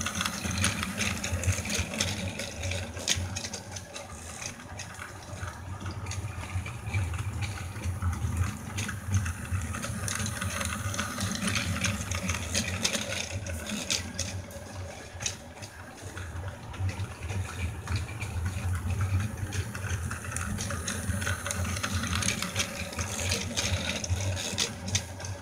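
Plarail battery toy freight train running on plastic track: the locomotive's small electric motor whirs steadily while the wheels and the wagons loaded with drink cans click and rattle as they roll by.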